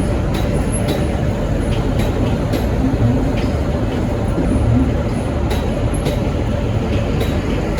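V/Line N-class diesel-electric locomotive (EMD 645 two-stroke V12) hauling its train out of the station: a steady heavy rumble of engine and wheels, with irregular sharp clicks every half second or so.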